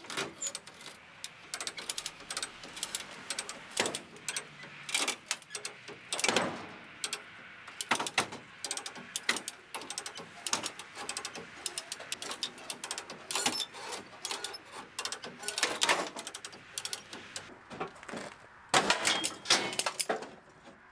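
Hand come-along ratcheting in irregular runs of sharp clicks as it pulls a crushed radiator core support forward, with a few longer, louder sounds about six seconds in and near the end.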